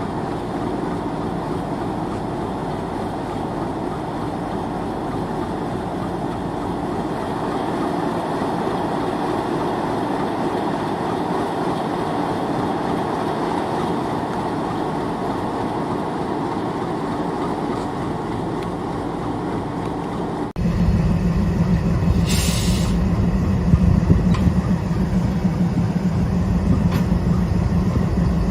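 Train hauled by ALCO diesel locomotives running on the track: a steady rumbling of wheels and brakes for about twenty seconds. It then changes abruptly to a louder, lower steady drone, with a brief high squeal a couple of seconds later.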